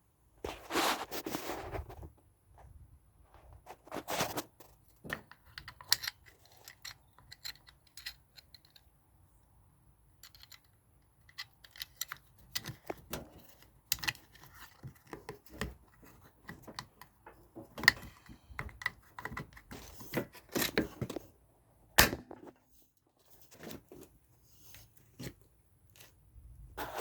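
Irregular clicks, knocks and clatter of washing machine parts and tools being handled, with a few sharper knocks in the second half.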